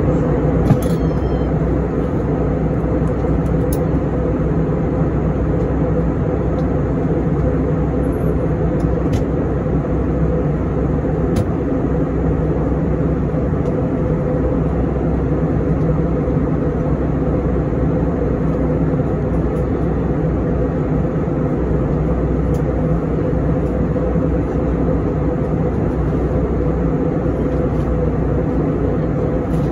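Steady cabin noise of an Airbus A321 in flight: the low drone of the jet engines and the rush of air along the fuselage, heard from inside the cabin, with a few steady hum tones running through it.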